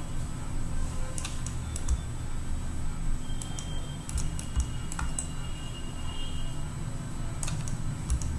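Irregular clicks of a computer keyboard and mouse, about a dozen scattered through, over a steady low hum.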